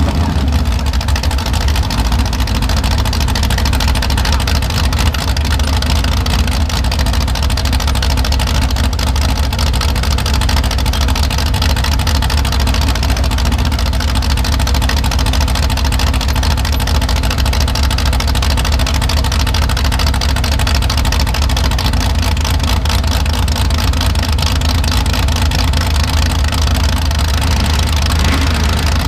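Mini rod pulling tractor engine running loud and steady without a break.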